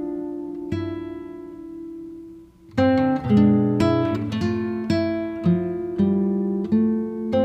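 Background music of an acoustic guitar playing plucked notes and chords. One chord rings and fades away over the first two and a half seconds, then a fresh run of notes starts, about two a second.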